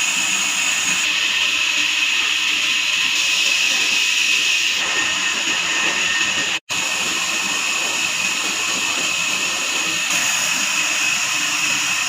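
Band sawmill blade running through a log, a steady high-pitched hissing whine. It breaks off for an instant partway through.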